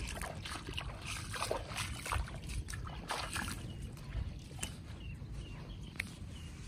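Sea water splashing and sloshing close to the microphone in irregular strokes, over a steady low rumble.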